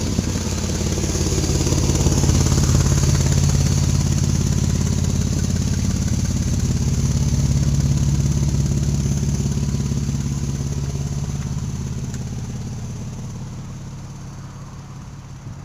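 Audi's engine idling steadily, heard close to the exhaust from underneath the car. It grows louder over the first couple of seconds, then fades toward the end.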